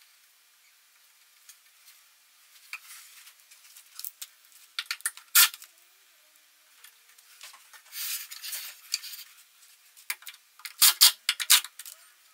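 Small plastic screw-cover caps being pressed onto screw heads in a particleboard bookcase panel: scattered light clicks and snaps, mixed with a hand rubbing and scraping against the panel. The sharpest click comes about five seconds in, and a cluster of clicks comes near the end.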